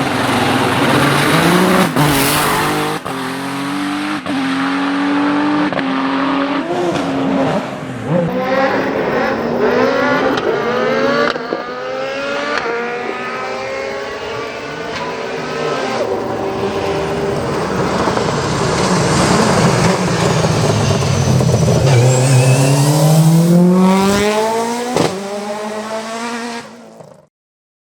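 Hillclimb race car engines at full throttle, revving up through the gears, the pitch climbing and dropping back at each shift. The sound cuts off abruptly near the end.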